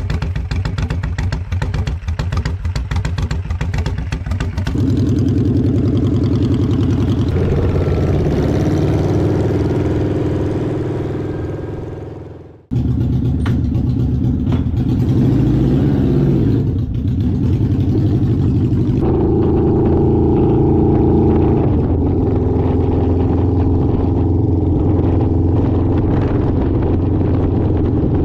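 Custom chopper motorcycle built on a Suzuki GSX750S, its inline-four engine running. It starts with a choppy, pulsing sound, then settles into a steady drone on the move. About twelve seconds in it fades away and cuts straight back in, and the pitch steps up and down a couple of times later on.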